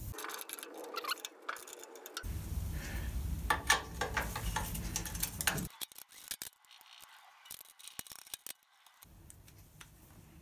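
Socket ratchet clicking in short runs, with metal tools clinking, as a motorcycle engine-mount bolt is worked loose. The clicking is busiest in the first few seconds and grows fainter after about six seconds.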